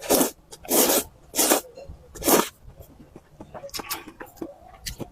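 Noodles being slurped up close, four loud slurps in the first two and a half seconds, followed by wet chewing and mouth smacks.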